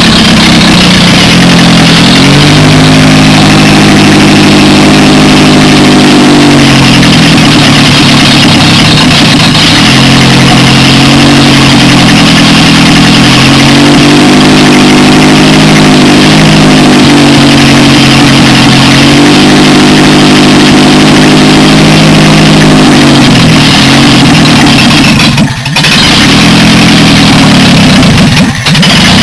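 Toyota 4A-C four-cylinder engine running loud, its revs rising and falling several times. There are two brief drops in level near the end.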